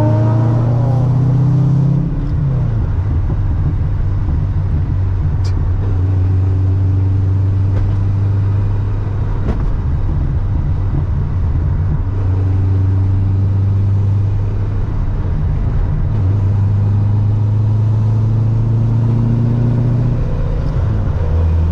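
ProCharger-supercharged LS3 V8 of a Corvette C6 running at a steady cruise: a deep, even drone. Engine speed drops about two seconds in after a short pull, then shifts slightly a few more times.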